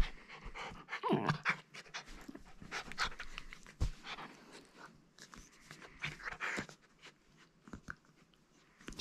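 Samoyed puppy panting while it play-bites on a shaggy blanket, with short rustles in between; it goes quieter over the last couple of seconds.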